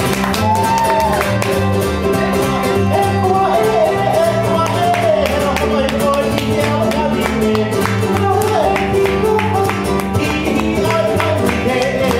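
Live Hawaiian band music: ukulele strumming over a plucked upright bass line, with a melody that slides up and down in pitch above them.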